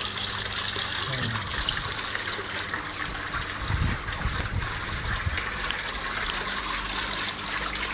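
Steady splashing hiss of water falling down a water-wall fountain into its basin.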